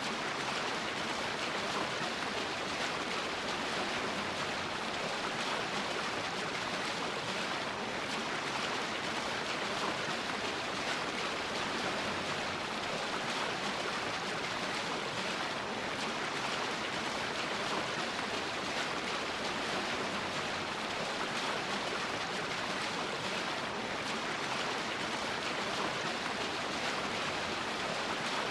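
Waterfall: falling water pouring in a steady, even rush with no let-up.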